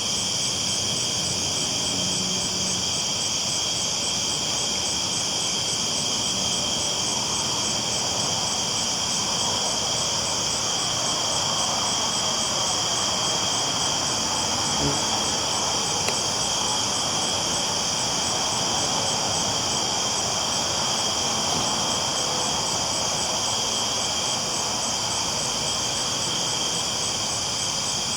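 Crickets trilling steadily at night over the even, steady rolling noise of a train on its tracks.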